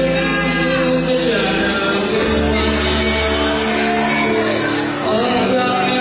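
Live rock band playing, with bass, drums and electric guitar, and a man singing over them.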